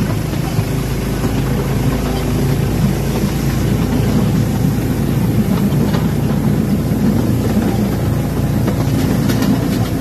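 Small narrow-gauge tourist train running along its track, a steady rumble of wheels on rail, heard from inside its open-sided car.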